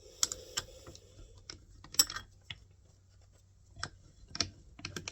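Scattered small clicks and taps of hard parts being handled as a 24-grit abrasive disc is worked onto a grinder by hand, with a faint hum underneath.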